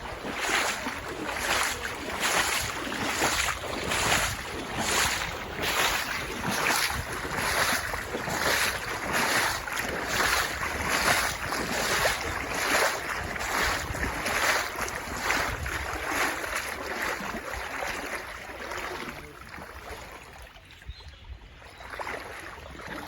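Water sloshing and swishing in a steady rhythm, just under two strokes a second, from someone moving through shallow flood water; it tapers off near the end.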